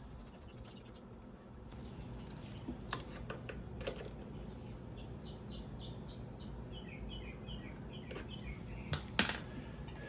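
Scattered light clicks and knocks of tools and parts being handled while a motorcycle's front brake caliper is fitted, with the loudest knocks about nine seconds in. A bird chirps a quick run of short notes in the middle.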